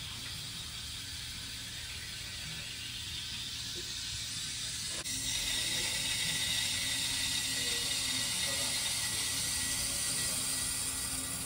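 Water hissing through the copper supply line and brass valve into a newly installed electric water heater. About five seconds in there is a click, and the hiss turns louder with a faint steady whistle.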